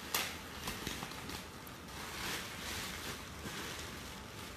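Metallic foil gift wrap crinkling and crackling as hands pull it open around a present, with a sharp crackle just after the start and irregular crinkles after it.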